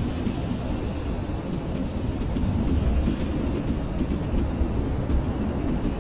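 Blizzard wind, a steady deep rushing rumble with faint hiss above, rising a little in strength about three seconds in.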